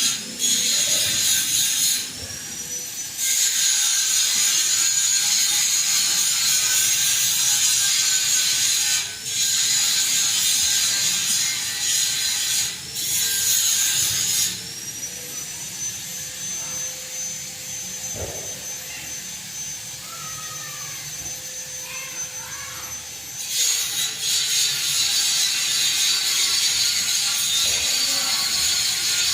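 A Panasonic F-560Z2 140 cm industrial ceiling fan running with a steady, hissy rush of air. The noise drops noticeably quieter briefly about two seconds in, and again for several seconds in the middle, before returning to full level.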